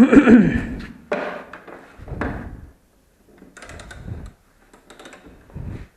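Wrench and hand tools knocking and clicking on a motorcycle's axle nut as it is tightened: several separate knocks about a second apart, with a quick run of clicks around the middle.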